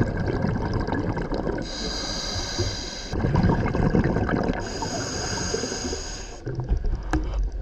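A scuba diver breathing through a regulator underwater: two breaths, each a rush of bubbling air, over a low steady rumble.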